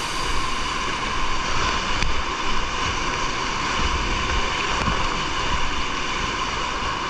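Whitewater rapids rushing steadily around a kayak, with occasional low thumps against the camera.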